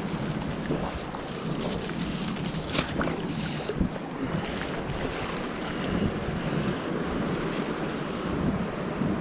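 Shallow sea surf washing and lapping around a person standing in the water, with wind buffeting the microphone. A couple of brief, sharper sounds stand out about three and four seconds in.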